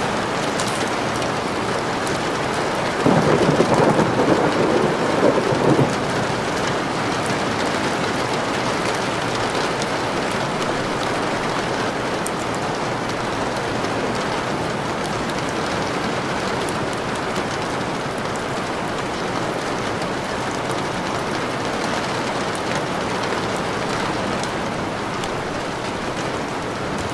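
Steady rain falling, with a loud burst of thunder about three seconds in that lasts around three seconds and stops abruptly.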